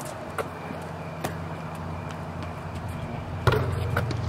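Basketball play on an outdoor court: a few sharp knocks of the ball, the loudest about three and a half seconds in, over a steady low hum.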